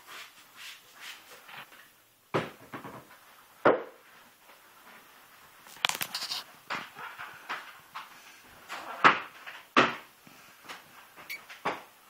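Floor being scrubbed by hand: a run of irregular scrubbing strokes broken by several louder knocks and bumps.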